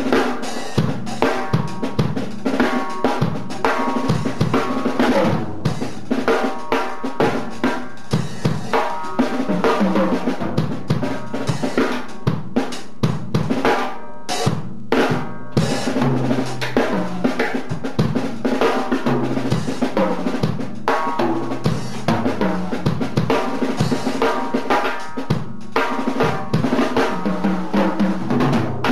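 Drum kit solo played without cymbals: fast, dense strokes around the snare and toms with bass drum beneath.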